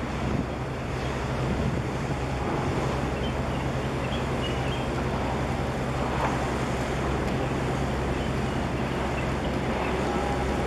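Steady low drone of a passing container ship's engines, with wind buffeting the microphone and a wash of water. It grows a little louder about a second and a half in.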